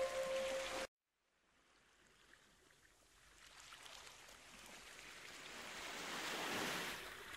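Background music with flute-like tones stops abruptly about a second in. Then gentle sea waves wash against a rocky shore, swelling slowly to a peak near the end before easing.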